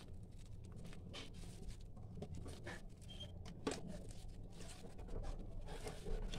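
A hand kneading and squeezing mashed potato dough in a steel bowl: soft, irregular squishing and patting.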